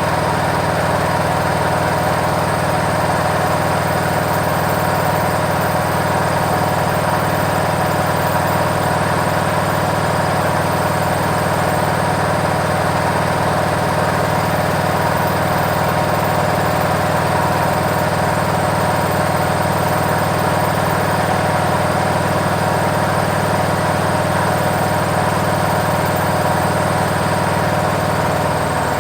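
Washing machine in its spin cycle: the drum and motor run with a steady hum and whir at a constant level.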